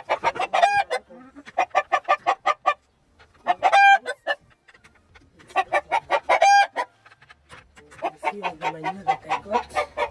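Chickens clucking in fast runs of short calls, three of them ending in a longer, louder held note, with a rooster crowing among them.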